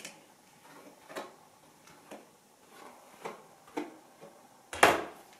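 Hairbrush drawn through long hair: a brief swish with each stroke, about one every half second to second, then one louder thump near the end.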